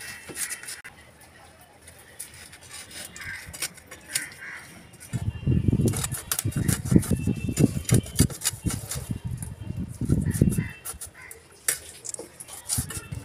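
A whole bhetki being scaled and trimmed on a bonti, the fish dragged against the fixed blade. Rapid rasping scrapes and knocks, loudest from about five seconds in until near the end.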